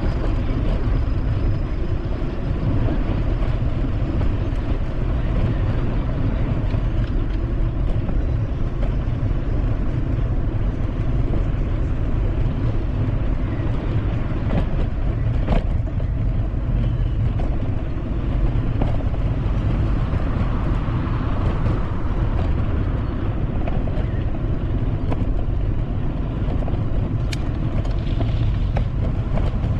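Steady low rumble and rush of riding a bicycle with the camera on board: wind on the microphone and tyre noise, with traffic on the road alongside. A sharp click about halfway.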